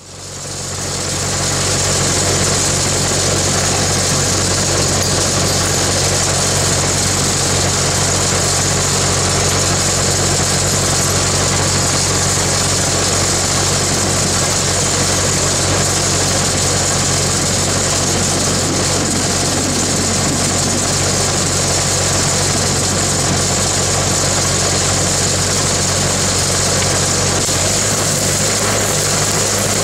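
A large engine running steadily at constant speed, with a low hum; the hum shifts in pitch near the end.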